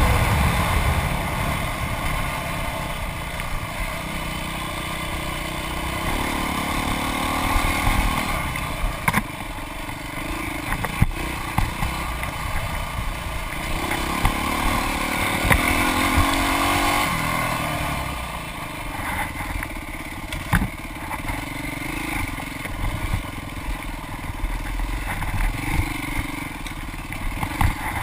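Dirt bike engine revving up and down as the bike is ridden over a rough trail, with sharp knocks and clatter from the bike over bumps, heard through a handlebar-mounted GoPro.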